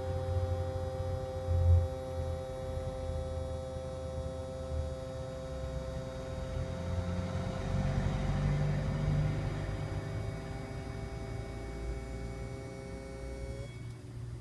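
Steady electrical hum from a component in the engine bay of a 2010 Iveco Daily 45C18 van, running after the ignition has been switched off. The hum stops suddenly near the end, leaving a faint tone. It is a recent run-on that the workshop calls normal, while the owner doubts it because it did not happen before.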